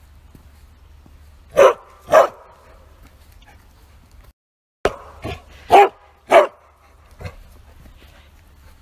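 Bearded collie barking hard and loud: two barks about half a second apart, then after a short break a quick run of five barks, three loud and two softer.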